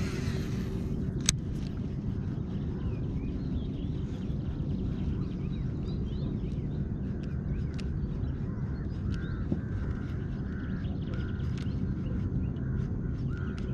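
Birds calling in short repeated chirps over a steady low rumble, with a few sharp clicks, the loudest about a second in.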